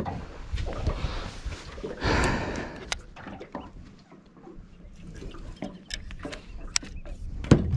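Rustling and light clicks of fishing tackle being handled in a small boat, with a sharp knock near the end.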